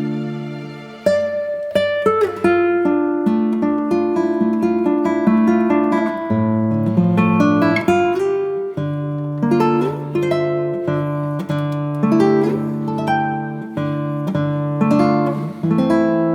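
Background music: melodic picked acoustic guitar, a steady run of plucked notes that ring and fade.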